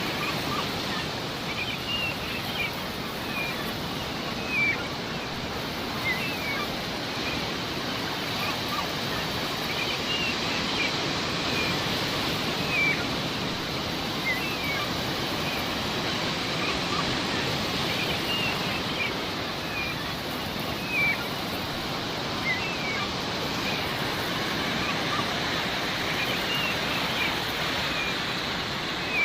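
Sea waves washing steadily, with seagulls giving short cries every few seconds.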